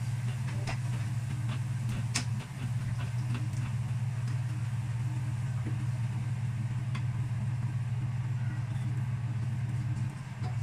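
A steady low machine hum, like a motor or fan running, with scattered clicks and scrapes of a spatula against a nonstick wok as fried garlic is stirred and scooped out.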